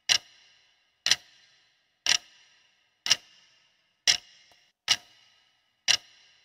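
Countdown-timer clock ticking sound effect counting down the seconds left to answer: seven sharp ticks about a second apart, each with a brief ring.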